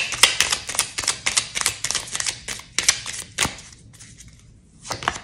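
Tarot cards being shuffled by hand: a fast run of card snaps and clicks that stops about three and a half seconds in, followed by a few soft taps.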